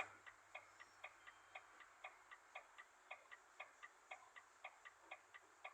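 Near silence with faint, rapid mechanical ticking, about four ticks a second.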